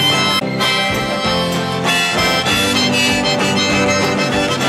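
Background music: a song laid over the video.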